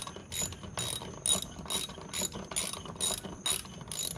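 Hand ratchet being cranked back and forth to run down a screw, each back-swing a short burst of pawl clicks, about two or three strokes a second.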